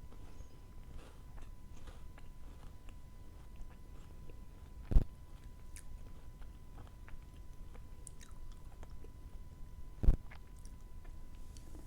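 Close-miked chewing of chocolate wafer and strawberry, with soft wet mouth clicks throughout. Three loud, sharp crunch-like hits come about five seconds apart: at the start, about halfway through, and near the end.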